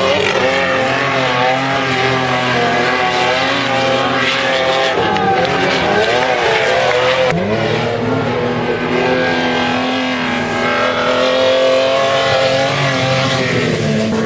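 Nissan Patrol engine revving hard as it climbs a sand dune, held at high revs with the pitch wavering. About seven seconds in, a second Patrol takes over, revving up and holding high revs.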